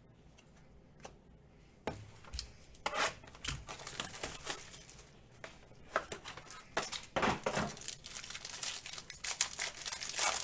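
Trading-card packaging crinkling and tearing as packs are opened and cards handled: a run of irregular, sharp rustles and crackles starting about two seconds in.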